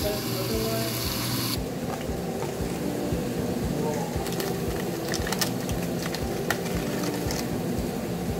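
Background music with a steady beat. For about the first second and a half, the hiss of meat sizzling on an electric contact grill sits over the music and then cuts off.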